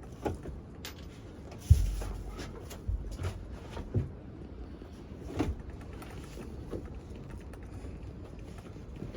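Bed boards being handled and fitted, with scattered knocks and clunks and one heavy thud about two seconds in.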